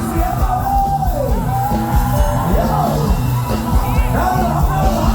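Live Thai luk thung band music with a heavy bass beat, a woman singing long held, sliding notes over it.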